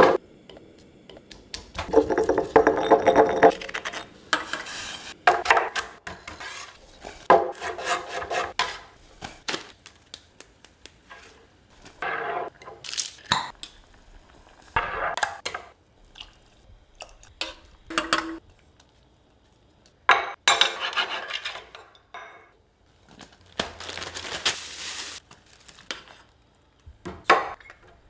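A run of separate kitchen food-preparation sounds, each a second or two long with short pauses between: pounding in a granite mortar and pestle, a jar lid being unscrewed, and a hand-held citrus press squeezing a lime, among knocks and clinks of pots and utensils.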